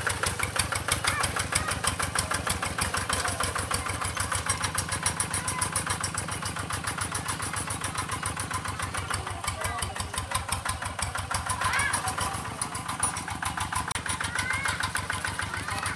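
Single-cylinder diesel engine of a G1000 two-wheel hand tractor running with a steady, fast chug as the tractor is driven on cage wheels through a wet rice paddy.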